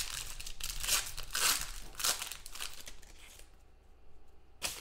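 Silver foil wrapper of a trading-card pack crinkling and tearing as it is opened by hand, a run of loud crackles for about three seconds. It then goes quieter, with a single sharp click near the end.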